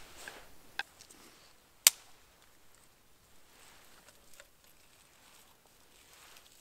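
Small campfire of dry kindling crackling, with a few sharp pops. The loudest pop comes about two seconds in, and faint ticks follow.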